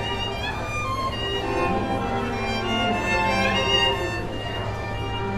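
Classical string music led by a violin, playing continuously.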